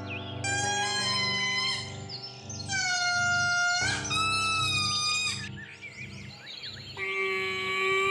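Background music of long held notes and chords that change every second or so.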